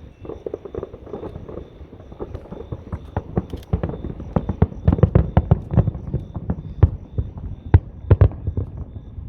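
Fireworks going off: an irregular run of sharp bangs and pops that grows denser and louder a few seconds in, with the biggest reports near the end.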